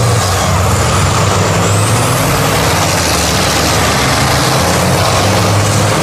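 A heavy off-road trial truck's engine running loud and steady, a low droning note under a wash of noise, as the truck churns through deep mud.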